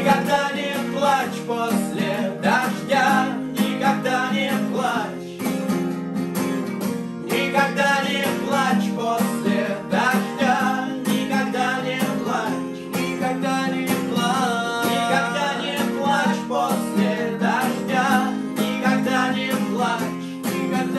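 Two acoustic guitars strummed while two men sing in Russian, their voices together in an unamplified acoustic performance of a song.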